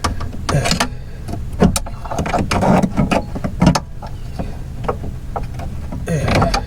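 Irregular clicks, knocks and plastic rattles as the window glass and its plastic regulator clip are pushed and pried by hand inside a BMW 328i door.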